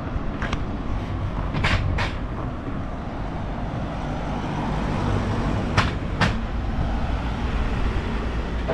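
Steady low outdoor rumble of street traffic, broken by two pairs of sharp clicks, one about two seconds in and one about six seconds in.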